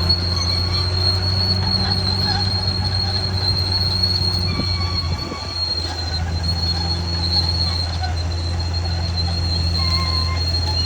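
Caterpillar D6R XL bulldozer's diesel engine running steadily under work, with a constant high-pitched whine over it. The engine note dips and shifts briefly about five seconds in, then settles again.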